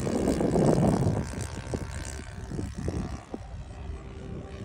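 Four-stroke nitro engine of a radio-controlled Corsair model plane flying past, a steady propeller drone; a louder rush of noise covers the first second or so.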